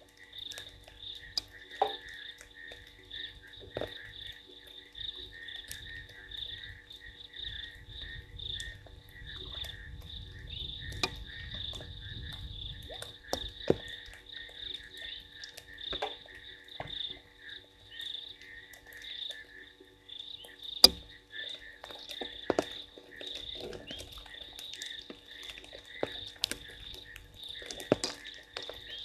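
A chorus of frogs calling continuously in rapid pulsing notes, with scattered sharp ticks of rain dripping, the loudest about twenty-one seconds in. A low rumble rises for a few seconds around ten seconds in.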